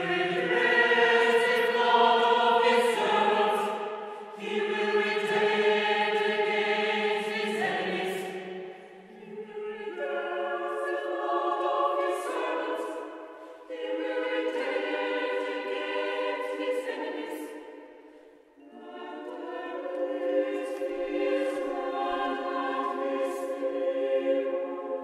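Mixed chamber choir singing a cappella: sustained, slowly moving chords in several long phrases, each separated by a short pause for breath. Partway through, the lowest voices fall away and the upper voices carry on.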